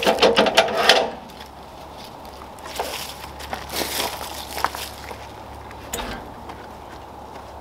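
A heavy log being rolled over on the steel bunks of a portable bandsaw sawmill. Wood scrapes and grinds on metal loudly for about the first second, then scattered light knocks follow as the log is shifted and settles.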